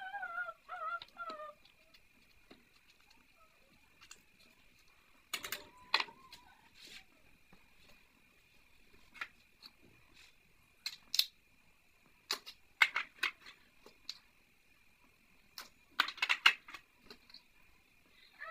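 Scattered knocks and clicks of food and a utensil against a clay cooking pot, with a cluster of quick clicks near the end, over a steady faint high tone. A short wavering call is heard at the very start.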